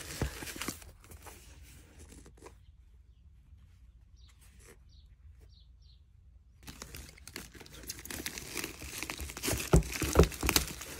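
Packaging rustling and crinkling as items are handled in a cardboard box. It is faint at first and near silent for a few seconds in the middle, then the crinkling of the stuffing grows louder, with a few sharp crackles near the end.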